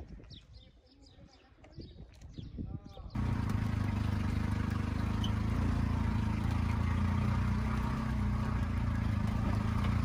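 Quiet outdoor sound with a few faint calls, then about three seconds in a sudden switch to an auto-rickshaw's small engine running steadily, heard from inside its open cab.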